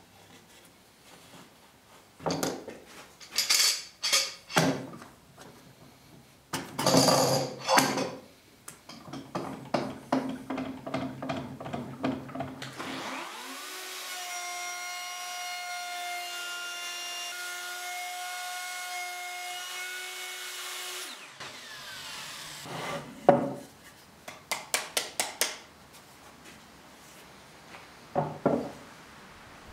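Woodworking at the bench: groups of tool strokes on wood, then an electric power tool runs with a steady whine for about eight seconds and stops, followed by quick runs of sharp taps and clicks.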